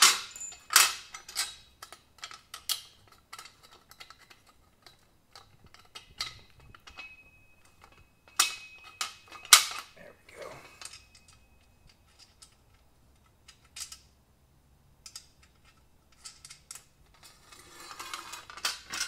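Steel bolts and square steel tubing of a cart frame clinking and knocking as bolts are worked through the holes by hand. The metal clicks and clanks come irregularly with quiet gaps, the sharpest about eight and a half and nine and a half seconds in.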